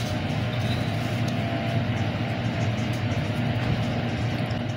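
Steady low machine hum of commercial kitchen equipment, with a few faint clicks from hands working in a steel tray.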